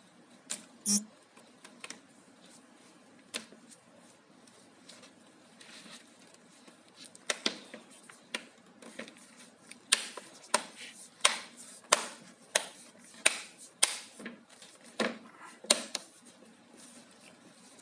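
Plastic back cover of an all-in-one desktop computer being pressed onto the case, its clips snapping into place in a run of sharp clicks, a few scattered at first and then about one or two a second through the second half.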